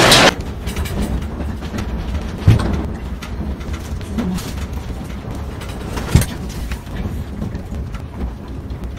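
Low rumble of a room shaking in an earthquake, with two sharp knocks about two and a half and six seconds in. Just after the start, a loud rush of noise cuts off abruptly.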